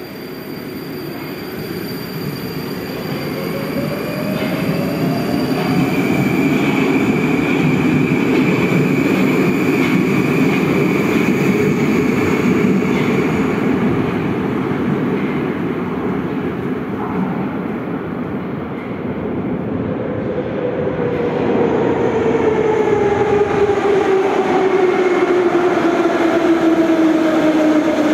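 Moscow metro train running, with a steady rumble of wheels on rails. The traction motors' whine rises over the first few seconds as it gathers speed and holds, then falls in the last third as the train slows.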